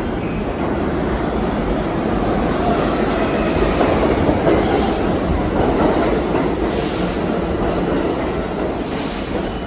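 New York City subway train moving along the platform: a steady, loud rumble of steel wheels on rail with clacking over rail joints. A thin, high wheel squeal fades out after the first few seconds.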